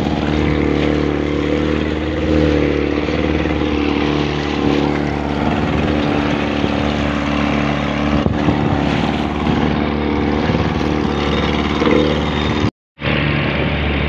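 Outboard motor of a small open boat running steadily under way, with a steady hiss of wind and water over it. The sound drops out for a split second near the end.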